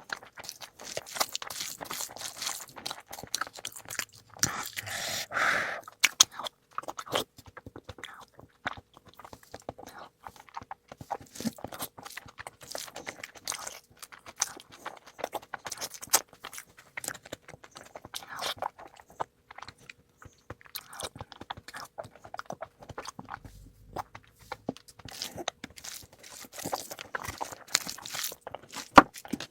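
Close-miked eating: chewing and biting food, a dense run of irregular clicks. The clicks are loudest about four to six seconds in, with one sharp click near the end.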